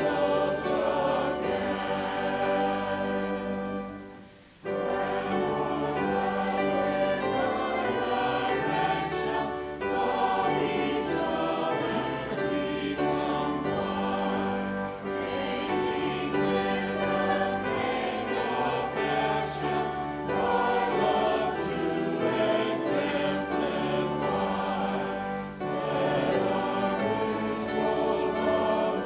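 Church choir and congregation singing a hymn together, with a short break between phrases about four seconds in.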